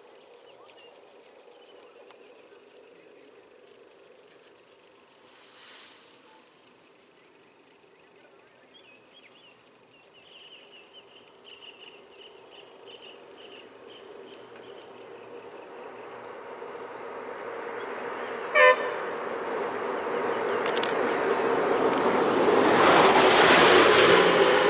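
Insects chirping in a fast, even rhythm, then a vehicle approaching and growing steadily louder over the last ten seconds or so, with one short horn toot about two-thirds of the way in.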